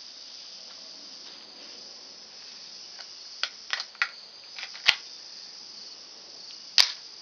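Steady high chirring of insects, with a few light clicks and then two sharp snaps, the louder one near the end, as a Ruger Mk III 22/45 pistol is handled and readied to fire.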